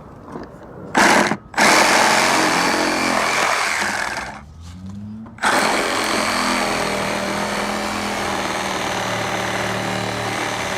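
Power tool motor run in bursts: a short blip about a second in, a run of about two and a half seconds, a stop while the motor winds down, then a restart at about five and a half seconds and a steady run.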